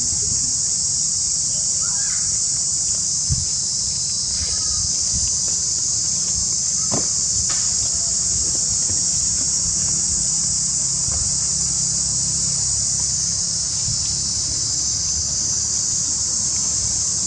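Steady high-pitched drone of an insect chorus, with a low rumble underneath and a few faint short chirps.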